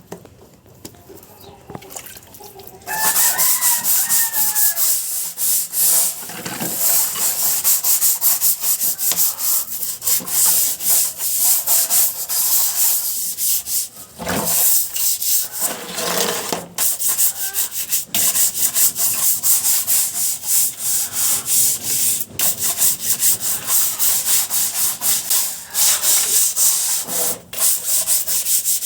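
Rapid scrubbing strokes on a chicken cage's droppings tray, starting about three seconds in. A chicken calls briefly as the scrubbing begins.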